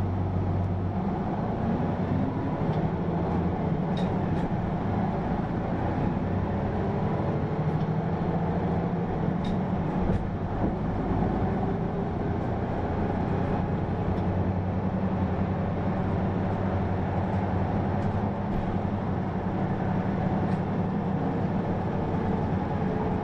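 Hino PA-KR234J1 route bus driving, heard from inside the cabin: a steady diesel engine drone with road noise, its pitch rising and falling a little as the bus moves, with a few faint clicks.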